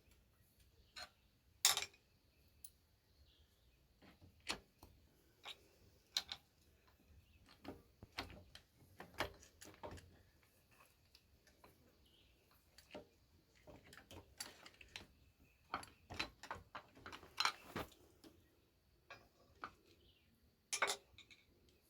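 Hand tools clinking and knocking against metal in irregular, scattered clicks while a tractor starter is being unbolted, with a few sharper knocks standing out.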